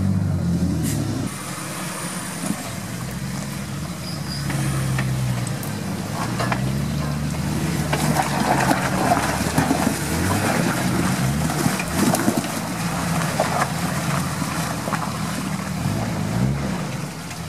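Jeep Wrangler's engine revving up and down repeatedly while driving off-road, with scattered knocks and rattles, heaviest through the middle.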